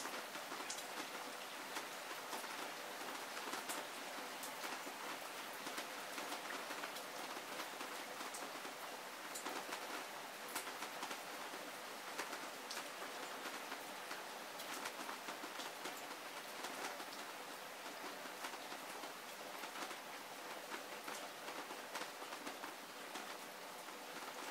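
Heavy rain falling steadily, with a dense patter of single drops striking nearby surfaces.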